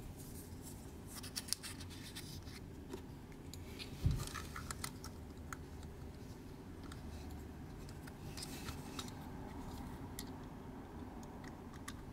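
Fingers handling a small plastic toy gramophone: light clicks and scratches of plastic parts as the horn and tone arm are moved, with one soft thump about four seconds in.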